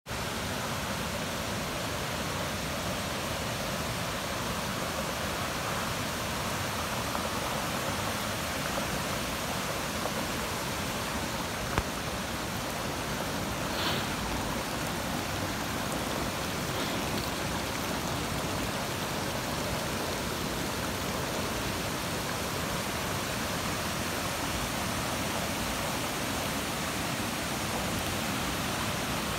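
Floodwater rushing steadily across a flooded road and yard, with one brief click about twelve seconds in.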